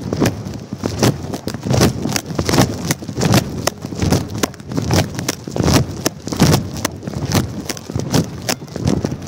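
Irregular knocking and flapping, roughly two or three a second, over a rumble of wind: a phone duct-taped to a flying kite, its microphone buffeted by the wind.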